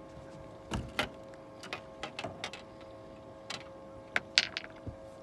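Scattered clicks and knocks as a crappie is handled and unhooked on a boat, the loudest a quick cluster about four seconds in, over a steady faint tone.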